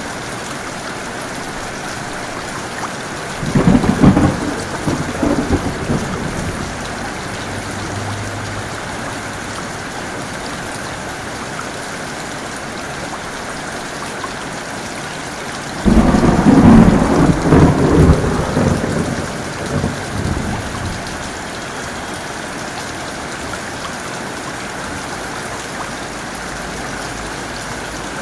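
Steady heavy rain with two claps of thunder. One comes suddenly about three and a half seconds in and rumbles away over a few seconds; a longer one starts about sixteen seconds in and rolls on for about five seconds.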